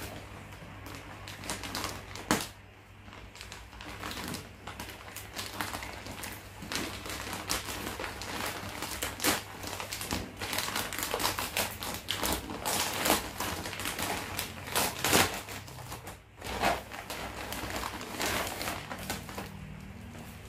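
Plastic shipping mailer being torn open and handled, with irregular crinkling and sharp crackles of the plastic; near the end a plastic-wrapped item rustles as it is pulled out.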